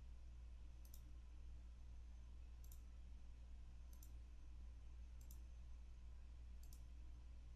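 Computer mouse clicking five times, a second or so apart, each click heard as two quick ticks, over a faint steady low hum.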